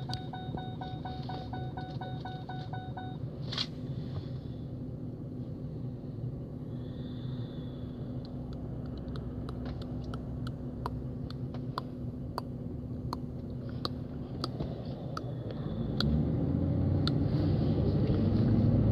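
Car engine idling with a steady low hum, heard from inside the cabin. A rapid run of short beeps stops about three seconds in, followed by a click, and scattered light clicks come later. Near the end the engine picks up as the car pulls away.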